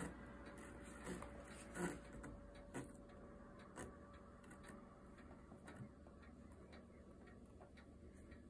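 Faint scratches and knocks of a kitten shifting about inside a cardboard box, with a few louder bumps in the first two seconds.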